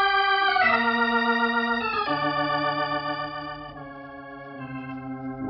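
Organ music bridge marking a scene change: held chords that shift four times, moving lower and growing quieter.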